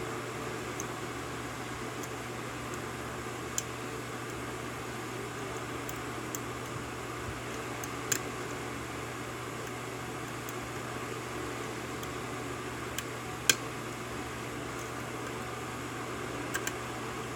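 Lock pick working the pins of a Yale 5-pin pin-tumbler lock: a handful of small, sharp clicks, scattered irregularly, the loudest near the end, over a steady background hiss and low hum.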